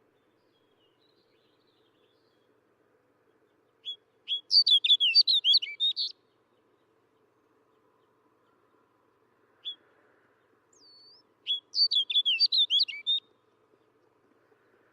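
Snow bunting singing: two short, rapid warbling song phrases of about two seconds each, several seconds apart, with a single brief note and a short whistle between them.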